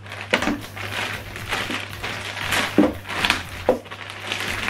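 Clear plastic bag crinkling and rustling as power cables are pulled out of it by hand, in irregular crackles.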